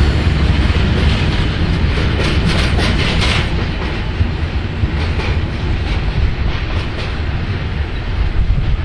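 Freight wagons loaded with logs rolling slowly past, wheels clattering over the track over a steady low rumble, with a run of sharper clacks about two to three seconds in.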